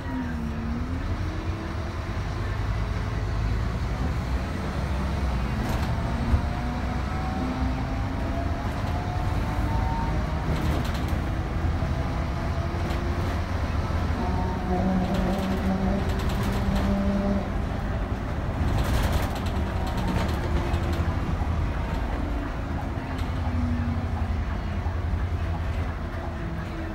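City bus heard from inside while driving: a steady low engine and road rumble, with drivetrain whine that rises and falls as the bus speeds up and slows, and a few brief clicks.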